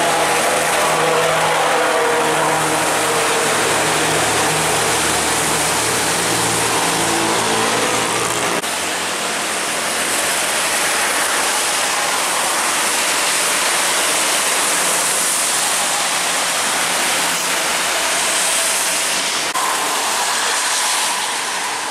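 Heavy diesel trucks passing on a rain-wet road: a truck engine's steady hum for the first eight seconds or so, cutting off suddenly, then mostly the hiss of tyres on wet tarmac.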